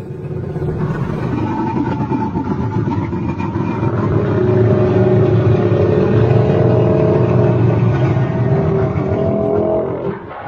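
Giant-monster roar sound effect: a long, low, rumbling roar with a droning higher tone through it. It swells about four seconds in and fades away at the very end.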